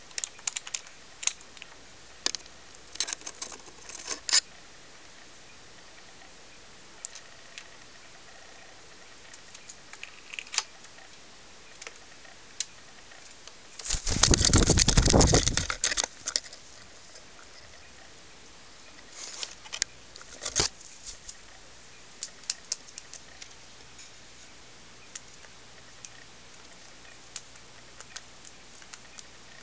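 Computer keyboard keys clicking under a cockatiel: scattered, irregular clicks, with a loud burst of rapid clatter lasting about two seconds near the middle.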